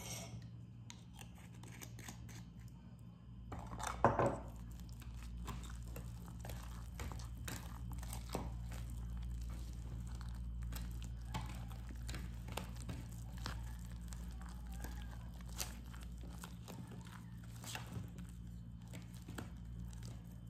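Spoon stirring and scraping cake batter in a plastic tub: irregular scrapes and clicks, with a louder knock about four seconds in, over a steady low hum.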